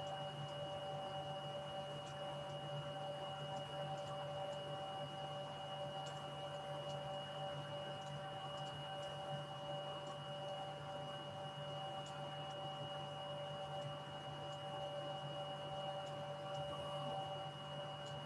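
Steady electrical hum with several constant high-pitched tones over it, picked up by an open video-call microphone. Faint scattered ticks come through now and then.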